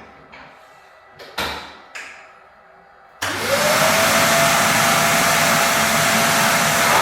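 A couple of knocks, then an electric power saw switches on about three seconds in, its motor whining up to speed and running steadily.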